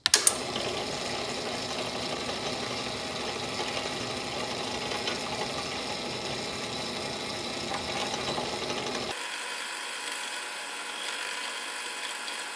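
Bench drill press running and drilling holes through a small disc clamped in a drill-press vise, a steady motor and spindle whir. About nine seconds in, the deep hum drops away and the higher whir continues.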